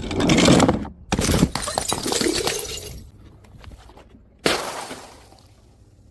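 Glass bottles smashing: a noisy crash at the start, then a sharp shatter about a second in with shards scattering and clinking for a couple of seconds, and another sudden crash about four and a half seconds in that dies away.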